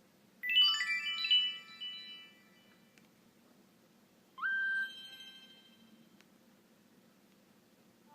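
Two short Nokia N96 alert tones played one after the other. The first is a bright chiming run of stacked notes that rings out over about two seconds. About four seconds in comes a quick upward swoop into a briefly held tone.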